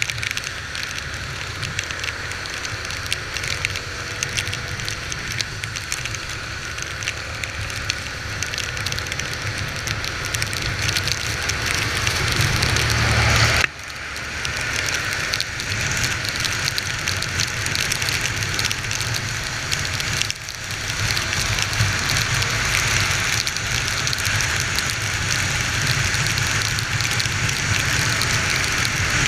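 Honda XR 250 Tornado's single-cylinder engine running under way, with a steady hiss of rain and wind. The engine builds up to about halfway through, then the throttle shuts suddenly and picks up again, with a second short drop later on.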